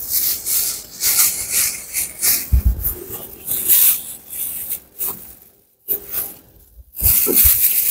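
Thin black plastic bag crinkling and rustling as hands dig dried rose petals out of it, in irregular fits and starts. There is a low thud about two and a half seconds in and a short lull shortly before the end.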